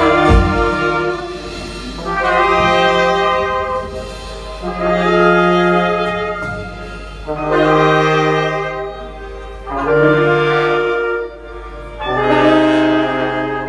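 Live horn section of saxophones, trumpets and trombone with a band, playing a series of six long held chords, one about every two and a half seconds, with short gaps between them.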